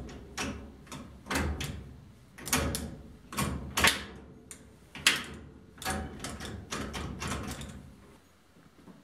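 An irregular series of sharp mechanical clunks and clicks, about two a second, some in quick clusters, stopping about eight seconds in.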